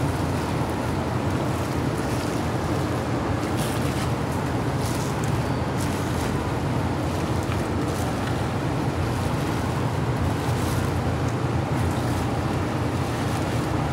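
Steady low rushing noise, with a few faint crinkles and rustles as gloved hands fold shredded chicken in a plastic-lined steam-table pan.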